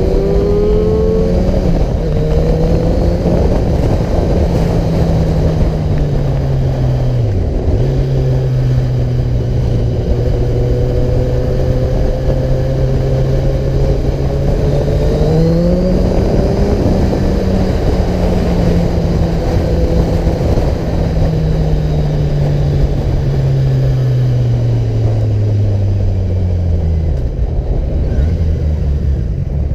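Car engine and road noise while driving, with a steady low rumble. The engine note shifts with speed: it dips sharply and briefly about seven seconds in, rises around fifteen seconds, then falls slowly near the end.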